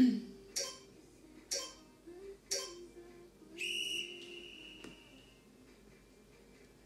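Three sharp knocks about a second apart, then a steady high whistle-like tone lasting about a second and a half.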